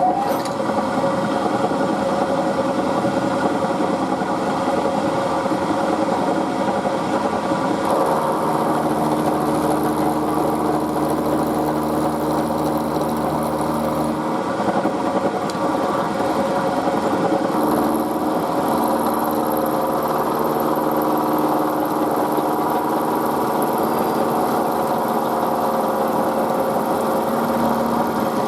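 Milling machine running steadily while cutting a pocket into the end of a steel hook spanner held in the vise. Its tone shifts slightly a few times as the cut goes on.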